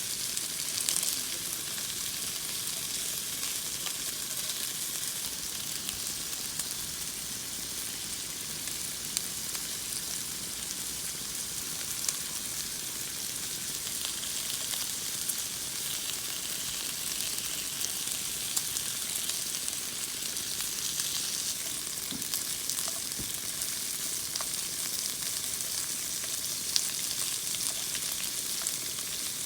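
Food frying in a hot pan: a steady sizzle with scattered small pops and spits.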